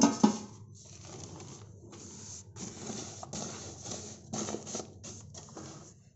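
Intermittent rustling and handling noise in short, irregular bursts, with a sharp knock right at the start.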